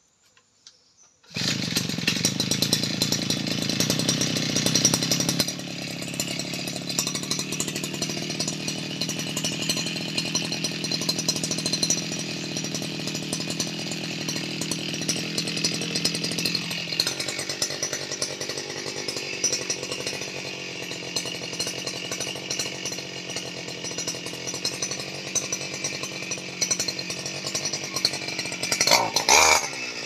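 Two-stroke brush cutter engine starting about a second in, then running fast and steady. Its note eases a few seconds later and again about halfway, and it revs up near the end.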